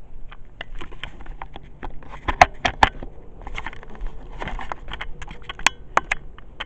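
Handling noise: irregular clicks, knocks and rustles from things being moved close to the microphone, with a cluster of louder knocks about two and a half seconds in and a few more sharp clicks near the end.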